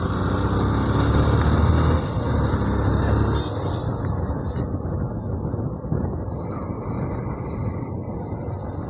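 Yamaha FZ V2 motorcycle's single-cylinder engine running while being ridden, louder for the first three seconds or so, then easing off a little.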